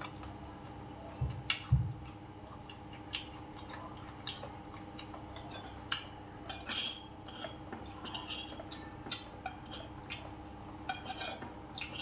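Metal spoon and chopsticks clinking and scraping against ceramic plates and bowls while eating, with two dull thumps about a second and a half in, over a steady background hum.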